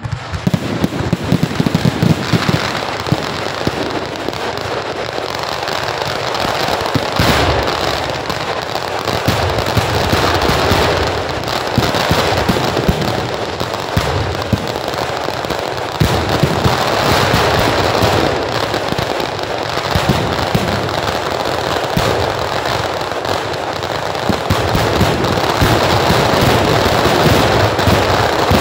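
Kerala temple vedikettu fireworks: a dense, unbroken barrage of firecracker and aerial shell explosions that starts suddenly and keeps up without pause.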